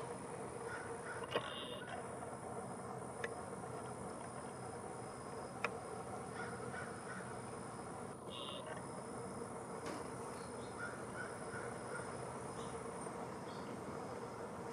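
Wild birds calling: two short harsh calls, one about a second in and one about eight seconds in, with a few faint chirps over steady outdoor hiss. A few sharp clicks are also heard.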